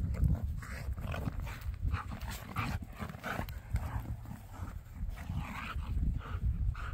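German Shepherd panting in quick short breaths, several a second, while tugging on a toy, over a low rumble.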